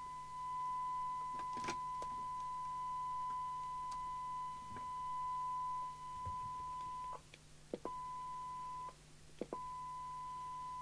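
A steady single-pitch test tone from a signal generator, received by a repaired Amstrad CB901 CB radio and heard through its loudspeaker. The radio is showing S9 and is holding the signal after transmit. About seven seconds in, the tone cuts out with a click, comes back briefly, and cuts out and returns twice more with clicks at each break.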